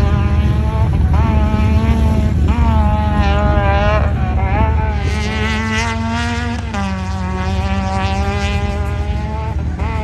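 Off-road vehicle engines revving over and over, each rev sweeping sharply up in pitch and then holding, about every second or two. A steady lower engine drone runs underneath.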